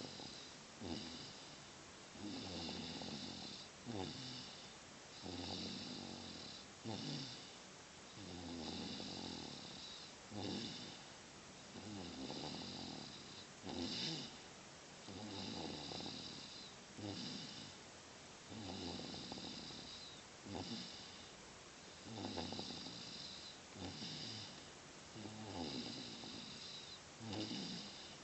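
A sleeper snoring heavily with a puppy-like, whistling note, in a steady rhythm: a long snore and then a short one, repeating about every three seconds.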